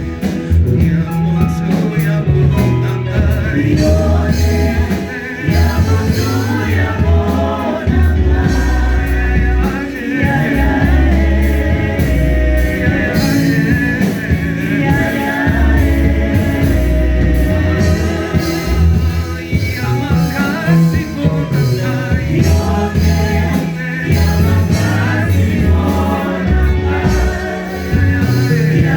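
Gospel music with singing, possibly several voices together, over a strong bass line and a drum beat.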